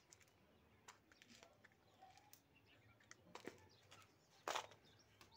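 Near silence, broken by faint scattered clicks and soft rustles of turban cloth being handled, with one brief louder rustle about four and a half seconds in.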